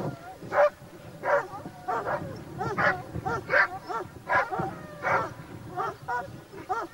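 Hunting dog barking repeatedly at a wild boar it is holding at bay, about one or two barks a second.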